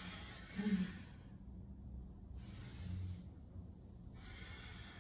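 A woman taking deep, audible breaths in a long exhale-and-inhale rhythm, three breaths in all. The first and longest carries a short voiced grunt about half a second in.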